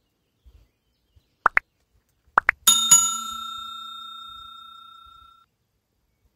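Two pairs of short rising pops, then a bell-like ding struck sharply that rings out and fades over nearly three seconds.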